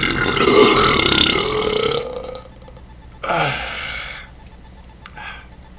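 A person burping loudly on purpose: one long drawn-out burp lasting over two seconds, then a second, shorter burp a little past the middle.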